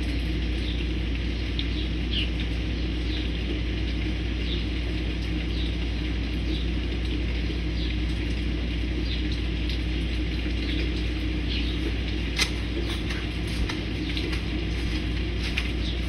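Small birds chirping in short calls every second or so over a steady low rumble, with one sharp click about twelve seconds in.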